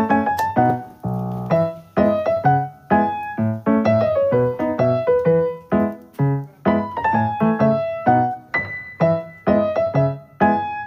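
Background piano music: a melody of separate struck notes, two or three a second, at an even pace.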